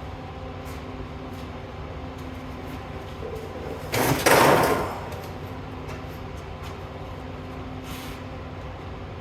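Steady hum of the plasma cutting setup, with a loud hiss of air lasting about a second starting about four seconds in.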